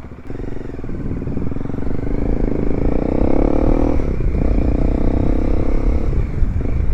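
Bajaj Dominar 400's single-cylinder engine through a Yoshimura exhaust with the silencer insert removed, pulling up through the revs, dropping in pitch suddenly about four seconds in as it shifts up, then pulling again.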